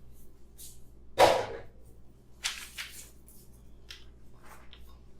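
A few short knocks and scrapes of containers or utensils being handled on a work surface. The loudest is a sharp clatter about a second in, followed by lighter knocks.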